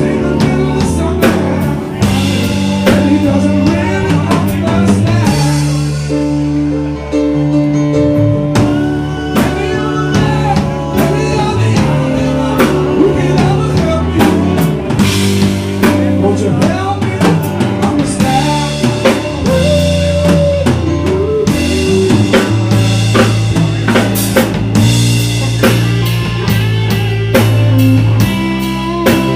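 Live rock band playing: electric guitar, bass, keyboard and a drum kit with sharp drum hits, all loud and continuous.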